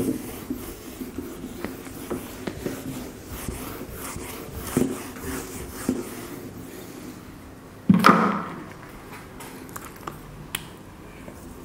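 A whiteboard duster wiping marker writing off a whiteboard in repeated rubbing strokes. About eight seconds in there is one louder bump.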